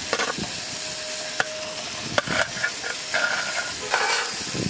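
Oil sizzling steadily as pomfret fries in a pan, with scattered taps and scrapes of sautéed onion slices being tipped and pushed from a steel plate into a steel mixer-grinder jar.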